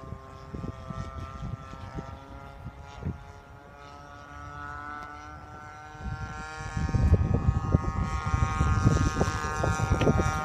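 Radio-controlled Yak-52 model's DLE-20RA 20cc two-stroke single-cylinder gas engine and propeller in flight, a steady buzzing drone. About six to seven seconds in it rises in pitch and grows much louder as the plane comes closer, with a low rumble underneath.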